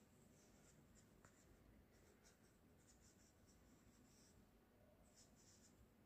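Faint, intermittent scratching of a marker pen drawing short lines on paper, with a small tick about a second in.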